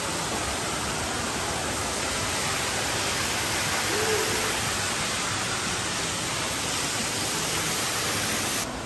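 Hot tub jets running, a steady rush of churning water and air. It drops abruptly in level near the end.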